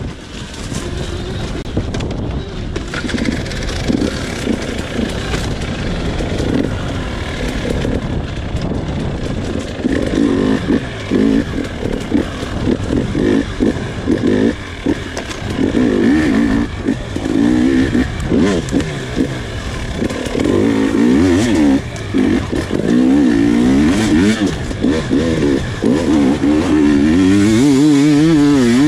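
Husqvarna TE300 two-stroke enduro motorcycle engine being ridden hard off-road, revving up and down again and again as the throttle is opened and shut, louder from about ten seconds in.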